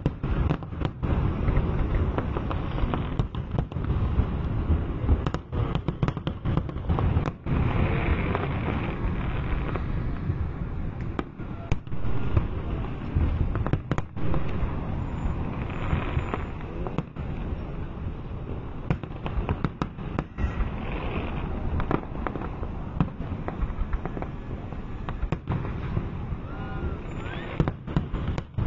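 Fireworks display: a dense, continuous barrage of aerial shell bursts, many sharp bangs and crackles close together.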